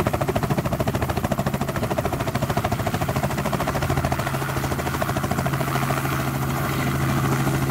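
Robinson R44 helicopter in a low hover, its main rotor giving a rapid, even blade chop over the steady drone of the engine.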